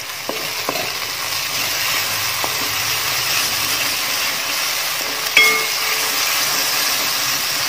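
Ginger, garlic and shallot paste with curry leaves sizzling in coconut oil in an aluminium kadai, frying until it browns. A wooden spatula stirs and scrapes it against the pan with a few light taps, and there is a brief louder sound about five seconds in.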